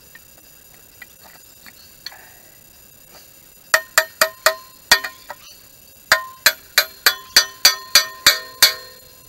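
A hammer striking a steel digging tool driven into the soil, each blow giving a sharp metallic clink that rings briefly. There is a group of about five blows just under four seconds in, then a steady run of about nine blows at roughly three a second.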